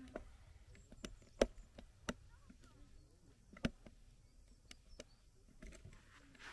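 A handful of sharp knocks and clicks from objects being handled close to the microphone, the loudest about a second and a half in, again at about two seconds and once more near the middle.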